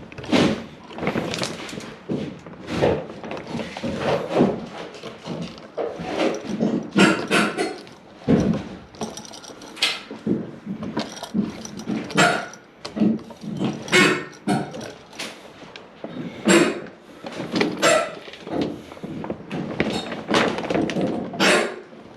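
A dog barking on and off, with occasional knocks and thunks among the barks.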